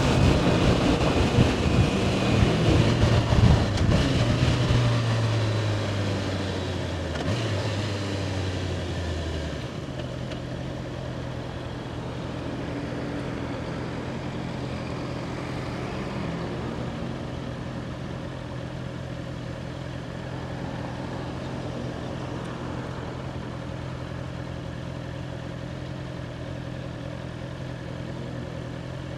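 2021 Honda CBR650R's inline-four engine slowing down with wind rushing over the microphone, the engine note falling and fading. Then, about a third of the way in, the engine settles to a steady idle.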